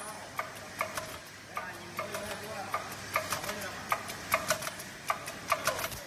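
Automatic zipper slider bag making machine running, its mechanism clicking in an even rhythm of about five strokes every two seconds over a steady mechanical hum.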